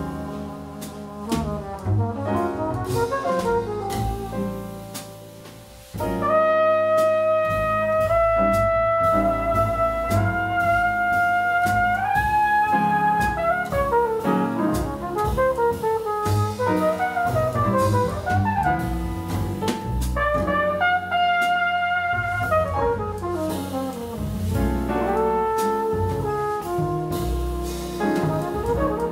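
Live jazz quartet: flugelhorn playing long held notes and melodic lines over piano, double bass and drum kit. The flugelhorn comes in loud about six seconds in, after a quieter stretch.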